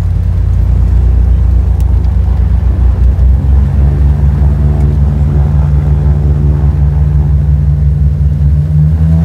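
Twin piston engines of a Cessna 402C (turbocharged six-cylinder Continental TSIO-520s) running with propellers turning, a loud steady drone heard inside the cabin. The engine note steps up slightly about three and a half seconds in.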